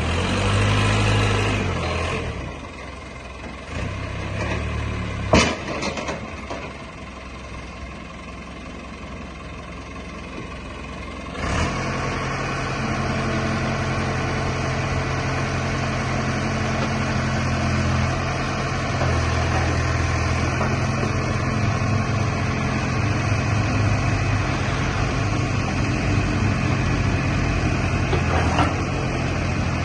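JCB 3CX Project 8 backhoe loader's diesel engine running. There is a single sharp knock about five seconds in. About eleven seconds in the engine sound jumps louder and then runs steadily.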